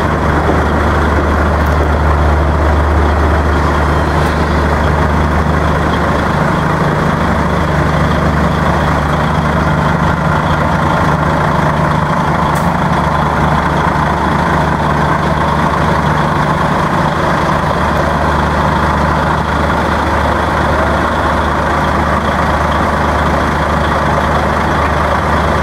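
DAF 95XF.430 tractor unit's straight-six diesel idling steadily.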